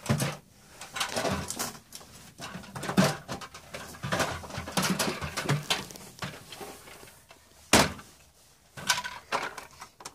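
Irregular knocks and rustles of plastic toys being handled and bumped about, with a sharp knock near the end.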